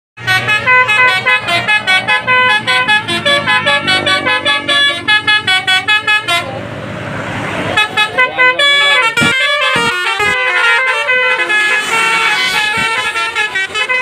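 Bus basuri ('telolet') horn playing a rapid melody of short notes that jump in pitch several times a second. About six and a half seconds in the tune breaks off for a hiss lasting about a second, then the horn notes start again.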